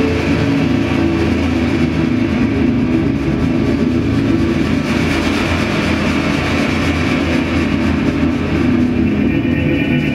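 Dance-performance soundtrack: a loud, steady drone with sustained low tones under a dense, rumbling, engine-like texture.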